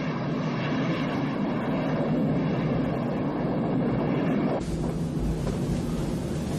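Jet airliner in flight: steady engine drone with a rushing hiss. The sound starts abruptly and changes abruptly about two-thirds of the way through, to a hissier rush with more low rumble.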